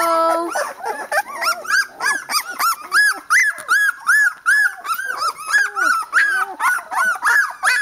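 A litter of young Boerboel puppies whimpering and squealing: a steady string of short, high cries that rise and fall in pitch, several a second, from more than one pup at once.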